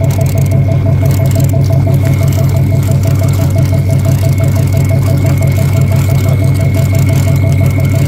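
Old-style (retro) manual fishing reel being cranked to bring in a hooked fish, giving a fast, even rattling "드르륵" reeling sound. Under it runs the steady hum of the fishing boat's engine.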